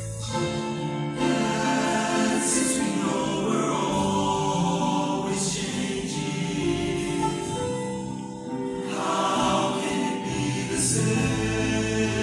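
Show choir singing held chords in harmony, with a few crisp 's' sounds from the voices.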